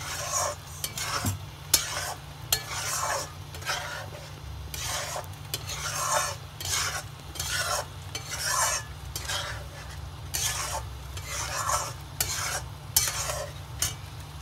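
Metal spatula stirring and scraping thick tomato masala around a frying pan, in repeated strokes roughly one every half-second to second.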